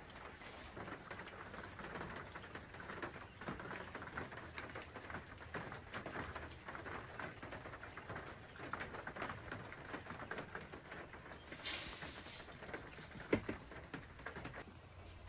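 Rice grains rattling and pattering on a wide round tray as they are shaken, tossed and sifted, a dense crackle of many small ticks. Near the end a single sharp metallic knock, as a copper lid meets an aluminium pot.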